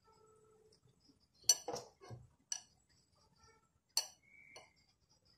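A handful of sharp clinks and knocks against a glass mixing bowl, spaced a second or so apart, as flour and water are mixed into dough by hand.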